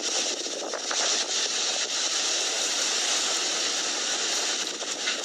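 Strong storm wind rushing steadily, a dense hiss with little bass, heard played back through a phone's speaker.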